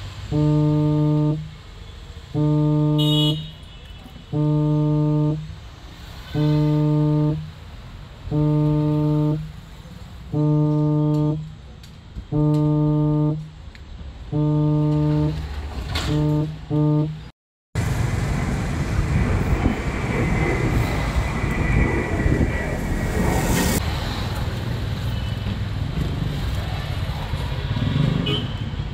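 A low horn-like tone beeping at a steady pace, each beep about a second long with a second's gap, eight times, then two shorter quick beeps. After a sudden cut, a steady dense noise takes over for the rest.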